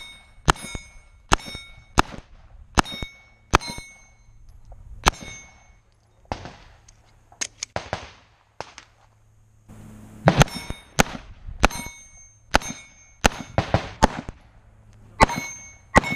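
Pistol shots fired rapidly at steel plates. Most shots are followed by the clang of a struck plate ringing on. There is a string of about seven shots, a lull with scattered softer cracks near the middle, then another string of about eight shots.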